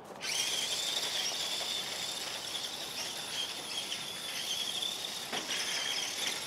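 Battery-powered Grave Digger Trax RC toy truck driving on its tracks across gravel: a steady, wavering high electric-motor whine over a grinding hiss, starting suddenly just after the start.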